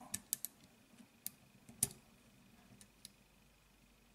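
Light metallic clicks and taps of a steel hammer pin and small parts against the frame of a Smith & Wesson 22 Victory pistol as the pin is worked into place. A quick cluster of clicks comes in the first half second, a louder click a little under two seconds in, then a few faint ticks.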